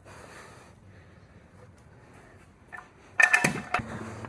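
Faint hiss, then about three seconds in a quick run of sharp metallic clanks and clinks from the jacking gear being handled under the kei truck, followed by a low steady hum.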